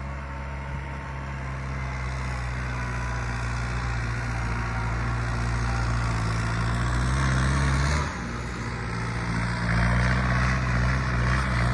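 New Holland 5630 tractor's diesel engine running steadily as it works the field. Its note drops abruptly about eight seconds in, then picks up again.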